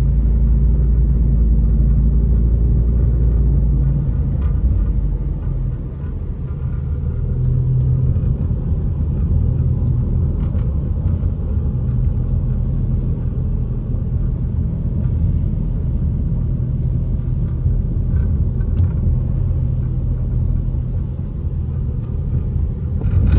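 Car driving on a wet road, heard from inside the cabin: a steady low rumble of engine and tyres. The deepest part of the hum drops away about four seconds in.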